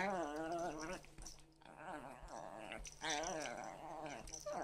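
A small dog and a cat play-fighting, with three long, warbling growl-like cries and a short one near the end.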